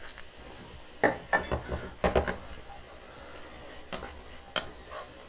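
Wooden spoon stirring in a metal cooking pot, knocking and scraping against it: a quick cluster of knocks about a second in, then two single knocks near the end.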